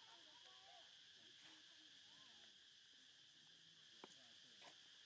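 Near silence, with a faint, steady, high insect drone, like crickets or cicadas, and a couple of small clicks about four seconds in.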